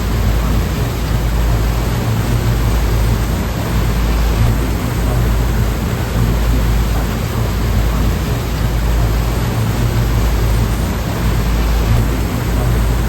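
Ocean surf as a steady, unbroken rush of noise, heavy in the low end, with no separate wave breaks standing out.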